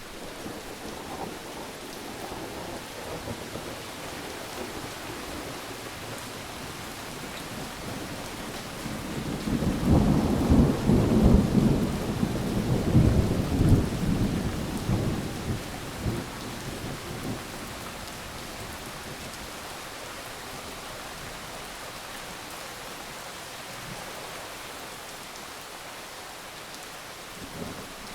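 Steady rain, with a roll of thunder that builds about a third of the way in, rumbles for several seconds and fades away.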